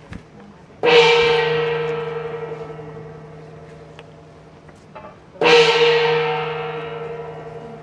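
A gong struck twice, about four and a half seconds apart, each stroke ringing out and slowly dying away.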